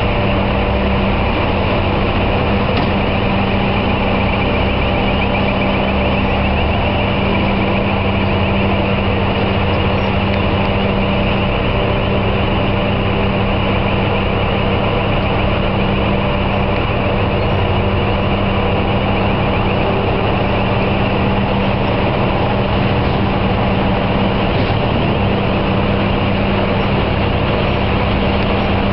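Heavy machinery running steadily: a loud, even drone with a constant low hum that does not change.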